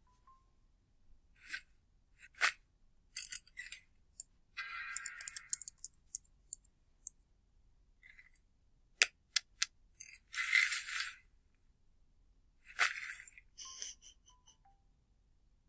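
Sound effects from an animated cartoon clip: short swishes, sharp clicks and clinks scattered through, with a brief ringing jingle about five seconds in and two longer swooshes near the end.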